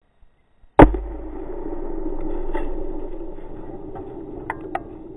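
A single very loud blast about a second in, from a 1 lb charge of Tannerite binary exploding target set off by a rifle shot, followed by a long rumble that slowly fades. Two faint sharp clicks come near the end.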